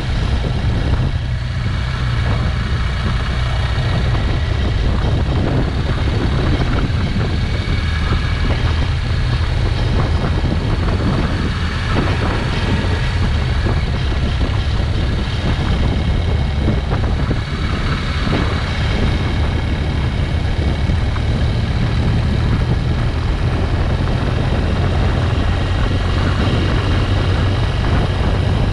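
Motorcycle riding along at a steady cruise, its engine running under a steady low rumble of wind on the microphone.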